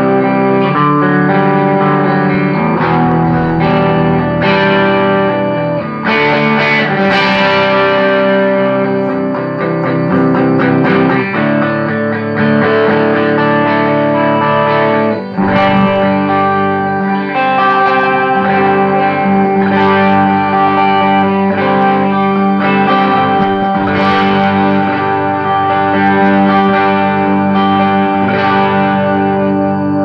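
Electric guitar played through a Soldano Atomic 16 replica tube head into a slanted 2x12 cabinet loaded with an Electro-Voice EV12 and an Eminence Legend speaker. Chords and notes ring out and change every second or two, with a short break about 15 seconds in.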